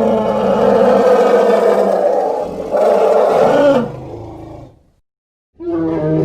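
Dinosaur roar sound effects: a long, deep, pitched roar, then a second, shorter roar about three seconds in that trails off. A short silence follows, and another roar begins near the end.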